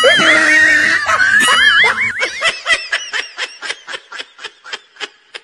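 High-pitched laughter: a warbling laugh at first, then a run of short ha-ha bursts at about four a second, dying away toward the end.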